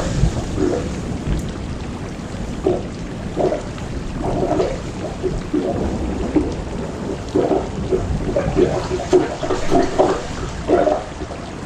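Heavy thunderstorm downpour: a steady rush of pouring rain with a low rumble that fades in the first second or so, and irregular patters of water striking nearby surfaces.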